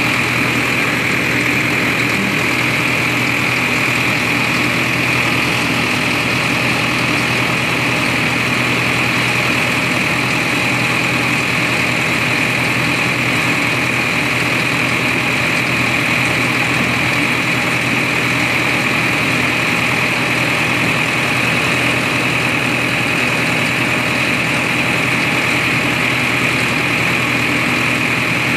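Engine of a road-rail tractor running steadily as it travels along railway track, heard from on board as a loud, unchanging drone.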